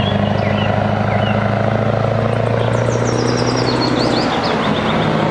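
Diesel engine of a road-train truck pulling tanker trailers, running steadily. A run of short high chirps sounds over it in the middle.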